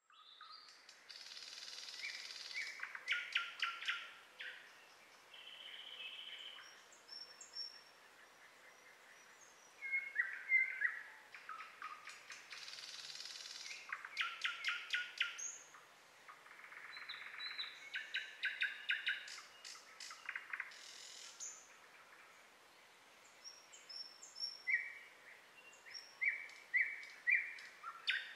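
Songbirds singing: repeated phrases of quick chirps and rapid trilled notes, with short pauses between phrases.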